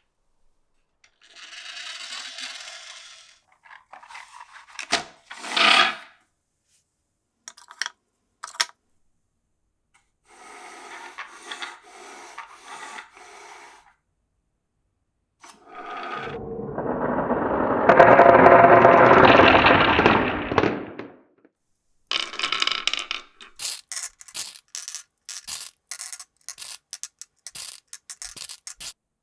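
Glass marbles rolling along the wooden and plastic tracks of a marble run, with sharp clicks where they drop and knock against the pieces. A louder, deeper rolling run lasts from about 16 to 21 seconds, followed by a quick string of clacks near the end.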